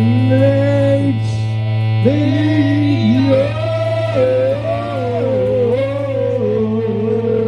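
Music: a steady low drone under a sliding, wavering melody line that bends smoothly between notes.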